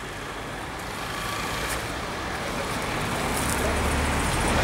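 Street traffic noise: a motor vehicle's low rumble growing steadily louder.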